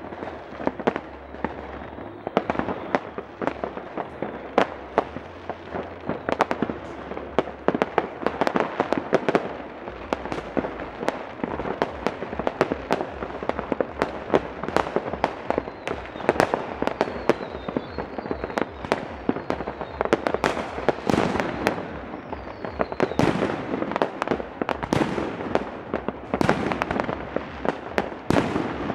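New Year's fireworks and firecrackers going off all around in a dense, irregular barrage of bangs and crackles. Twice, about halfway through and again a little later, a faint falling whistle sounds.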